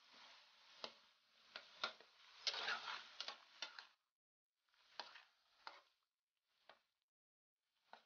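Metal spatula clicking and scraping against a wok while a coconut-milk sauce with chilies is stirred, over a faint sizzle. The clicks come in a quick cluster for the first few seconds, then the sound drops out to silence with only a few scattered clicks.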